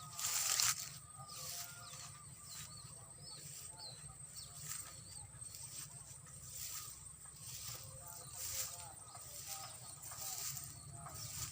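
Faint outdoor ambience: a brief rush of noise at the start, then soft noises repeating about once a second, with short chirping animal calls scattered through.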